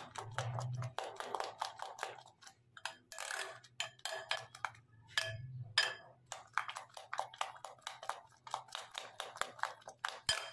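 Metal spoon stirring a beaten egg and noodle mixture in a glass bowl, clinking and scraping against the glass in quick repeated taps, several a second.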